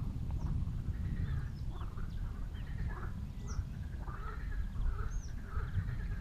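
Birds chirping with short high whistles and calls scattered through, over a steady low rumble.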